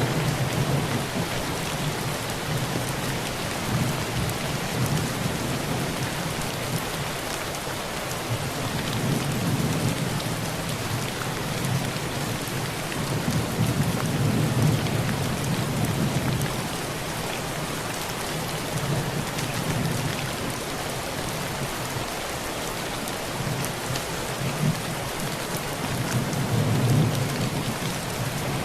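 Heavy rain pouring steadily onto a thin tin roof, with thunder rumbling low in the background in slow swells that rise and fade several times.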